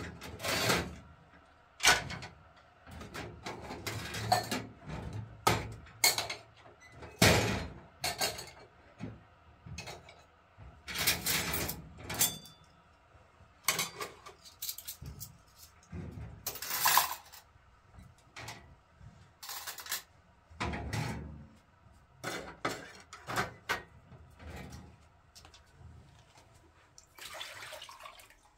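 Metal cups and dishes clinking and clattering as they are set one by one onto a wire dish rack, in irregular sharp knocks.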